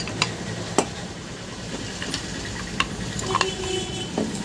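Bearing puller being fitted to the ceiling fan's rotor shaft to pull its ball bearings: a handful of sharp metal clicks and light scraping, one click ringing briefly a little after three seconds in, over a steady low hum.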